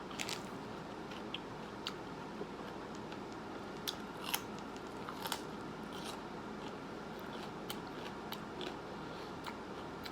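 Food being chewed close to the microphone: scattered small wet clicks and crunches, a few louder around the middle, over a steady faint hiss.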